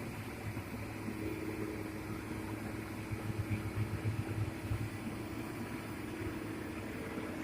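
Heavy diesel engine of a hydraulic excavator running, a steady low drone that swells and pulses between about three and five seconds in, as when the machine is put under load.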